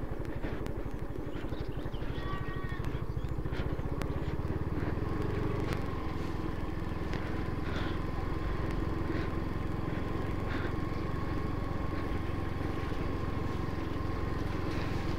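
Yamaha Mio automatic scooter's single-cylinder engine running at a steady cruising pace as it rides along. A faint steady whine comes in about four seconds in.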